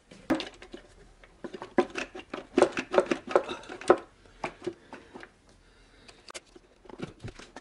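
Irregular clicks and knocks of hands moving wiring and parts around a car engine's valve cover, busiest between about one and a half and four seconds in.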